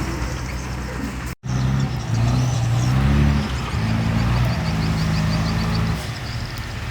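A heavy diesel engine on construction machinery runs and revs, its pitch rising and falling. The sound cuts out for an instant about a second and a half in. Near the end there is a rapid high clicking.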